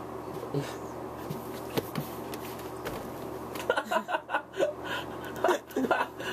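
A steady low hum, then from about halfway in, a person laughing in a run of short chuckling bursts.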